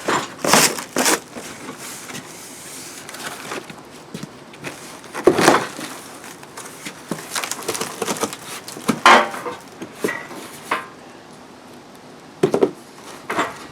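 Cardboard packaging being torn open and handled, with scattered crackles, scrapes and knocks as the heavy steel crossbars of a truck-bed crossmember kit are pulled from the box.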